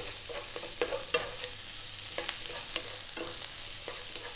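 Broccoli florets and sliced onion sizzling in oil in a non-stick frying pan over high heat, while a wooden spoon stirs them with irregular scrapes and taps against the pan.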